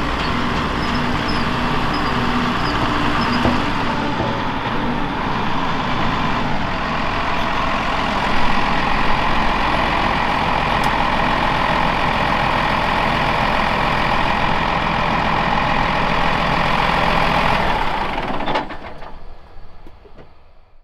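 Farm machinery running steadily, a tractor-type engine drone with a whine that grows stronger partway through; the sound fades out over the last couple of seconds.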